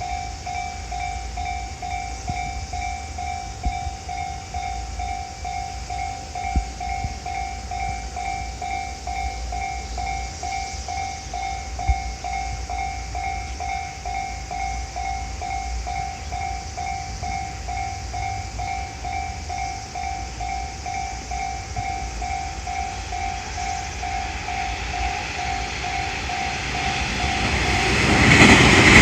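Japanese level-crossing alarm ringing its rapid, evenly repeating kan-kan ding throughout. In the last few seconds the noise of an approaching 223 series electric train swells and covers the bell.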